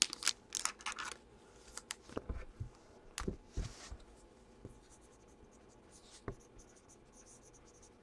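Scattered small handling noises at a desk: short clicks, scratchy rustles and a few soft knocks, busiest in the first four seconds and sparser after.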